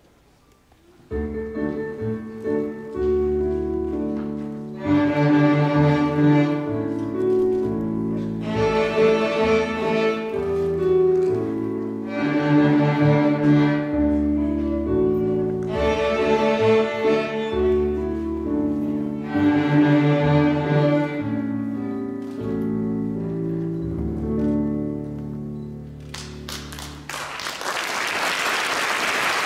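Young string players on violins and cellos bowing rhythm patterns on the D and A strings together, with louder passages swelling about every three and a half seconds. The playing stops near the end and applause begins.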